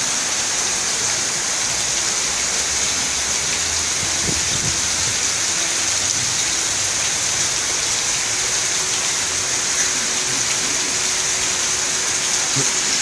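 Heavy tropical rain pouring down, a dense, steady hiss of rain hitting the ground.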